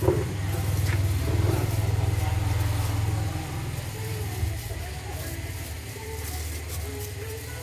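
Low engine rumble of passing road traffic, swelling over the first few seconds and then easing off, with a short knock right at the start.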